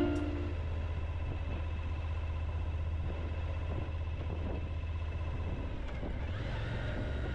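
A motor vehicle running steadily, giving an even low drone with some noise over it.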